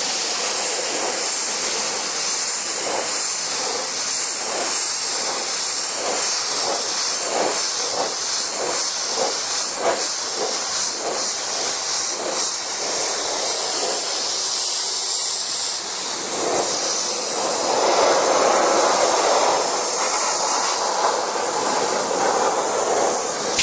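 Pneumatic sealer spray gun (KIT/SAM/2002 11A) hissing as it atomises U-SEAL Spray-Simp sprayable seam sealer onto a panel with compressed air, at its minimum air and material settings. The hiss pulses about twice a second for a stretch, then grows fuller for a few seconds near the end.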